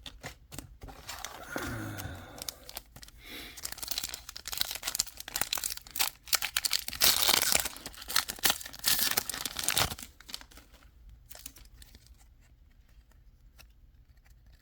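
Foil booster-pack wrapper crinkling and tearing open, with cards being handled; the crackling dies down to a few faint clicks after about ten seconds.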